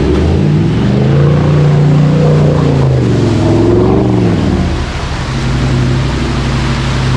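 Four-wheel-drive's engine under load: its note climbs over the first second, holds high, wavers, then drops back to a steadier lower running note about four and a half seconds in.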